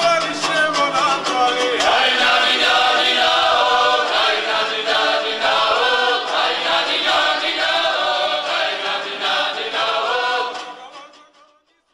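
Background music of a choir singing, fading out near the end.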